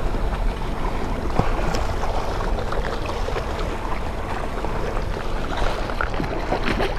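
Seawater washing against the rocks under steady wind noise on the microphone, with a few faint clicks.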